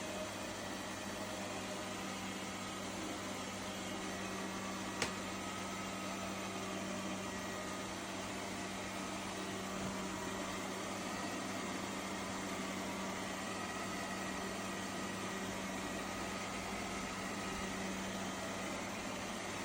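Robot vacuum running: a steady whirring hum from its suction fan and brushes, with a single sharp click about five seconds in.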